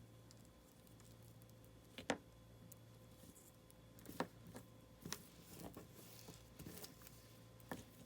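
Faint handling sounds of small craft materials, a few light clicks and taps as thread and beads are worked through a paper matchbook journal, over a low steady electrical hum.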